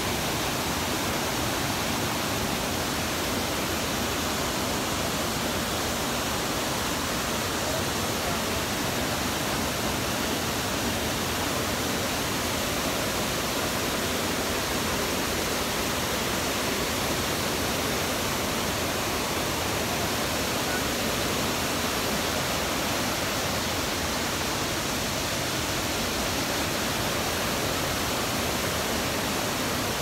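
Waterfall: falling water making a steady, even rush that does not change.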